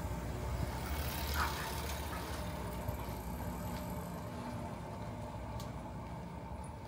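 A motor vehicle's engine running steadily with a low hum that slowly fades, and a brief swell of hiss about a second and a half in.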